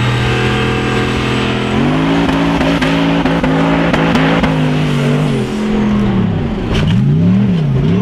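Hill-climb buggy's engine running hard under full throttle up a steep sand slope. Its pitch jumps up about two seconds in and holds with brief dips, then it revs up and down sharply several times near the end.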